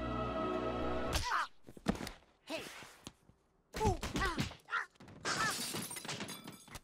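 Animated-film soundtrack: a held orchestral logo-theme chord ends about a second in, followed by short cartoon vocal calls that bend up and down in pitch, a few sharp clicks, and near the end a quick run of even ratcheting clicks like a fishing reel.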